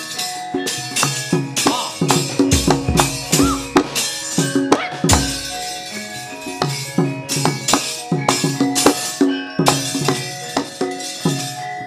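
Javanese gamelan playing battle music for wayang kulit: quick, irregular metallic clattering strikes of the dalang's kecrek plates over kendhang drum strokes and ringing metallophone notes.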